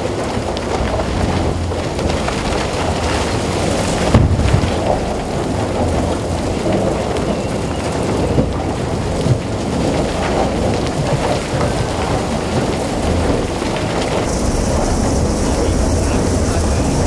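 Continuous rumbling roar of a Herrenknecht tunnel boring machine's nearly 14-metre cutterhead grinding through the last of the rock face, with broken rock crumbling and falling and the hiss of water hoses spraying the face. There is a louder knock about four seconds in.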